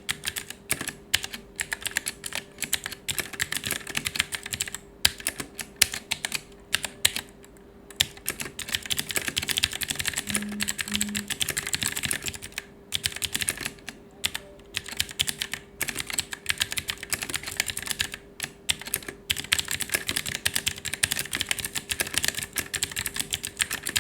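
Typing on an Aula F3287 mechanical keyboard with clicky blue switches: a rapid, continuous run of crisp key clicks, broken by a few short pauses.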